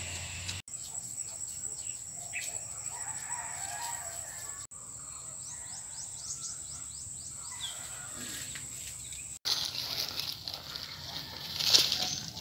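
Outdoor field ambience with bird calls and a steady high-pitched tone, cutting out abruptly a few times. Near the end comes loud rustling and scraping as a hand digs into dry soil among sweet potato vines.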